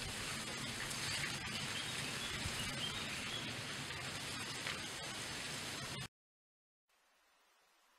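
Outdoor nature ambience: a steady hiss with a few faint bird chirps. It cuts off suddenly to silence about six seconds in.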